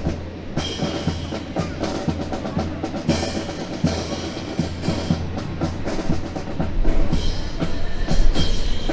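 Drill rifles clacking and knocking in quick, irregular, drum-like strikes as they are slapped and handled, with a few brighter metallic clusters.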